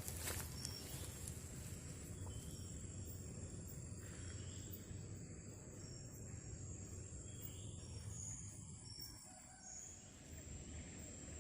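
Faint insect drone: a steady, high-pitched buzz, typical of crickets, with a few short high chirps over it.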